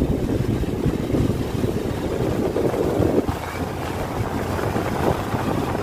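Wind buffeting the phone's microphone from a moving car, over the car's engine and tyre noise.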